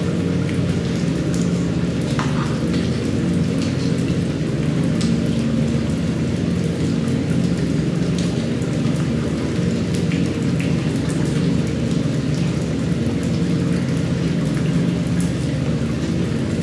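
Steady rain with scattered drips and ticks, over a low, steady hum.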